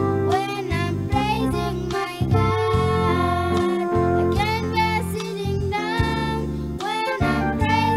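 Children's choir singing a song in unison, with instrumental backing and a strong bass line.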